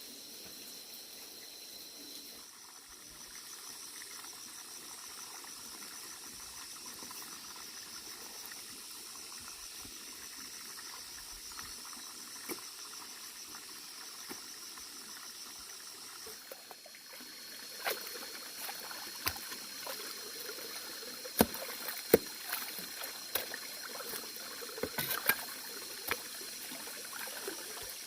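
Water trickling and splashing over a steady high-pitched insect drone. From about 17 seconds in comes a run of sharp clicks and knocks.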